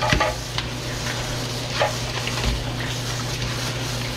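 Kitchen tap running into a plastic colander in a stainless steel sink while it is rinsed by hand: a steady hiss of falling and splashing water, with a few light knocks from the colander at the start and again about two seconds in.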